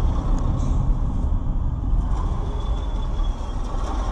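Steady low rumble of road and engine noise inside a moving car, picked up by a dashcam microphone.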